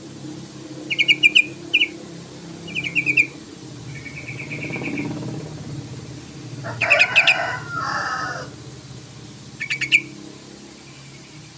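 Sooty-headed bulbul calling in short chattering bursts of rapidly repeated notes, six or so bursts, the longest and fullest about seven seconds in, over a steady low hum.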